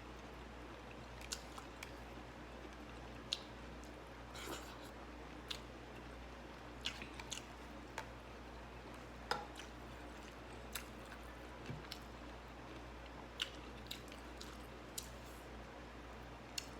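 A person chewing and biting a meal of rice and fresh vegetables, with about a dozen short, sharp crunches and mouth clicks at irregular intervals over a low steady hum.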